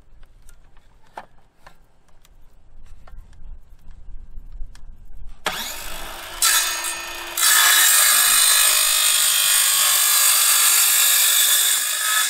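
Hitachi 18-volt cordless circular saw switched on about halfway in, spinning up, then cutting across a cedar fence picket, loud and steady through the rest. Before it starts there are only a few faint ticks.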